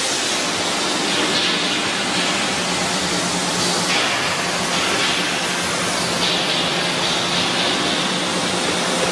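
A 315-ton hydraulic press running: a steady loud hiss over a low hum, with the hiss brightening a few times.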